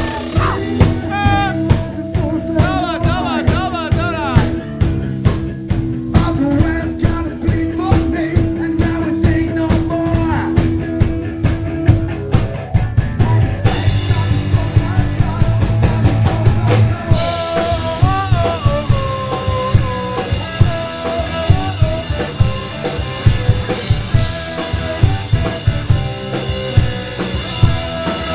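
Live rock band playing: drum kit and electric guitars, with a wavering held voice or guitar line near the start and bending guitar notes later on.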